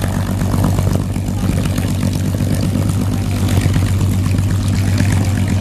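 Propeller-driven Yak aerobatic planes running their nine-cylinder radial engines with a steady, loud drone.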